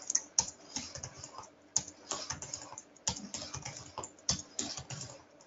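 Irregular clicking of a computer keyboard and mouse: scattered single keystrokes and clicks.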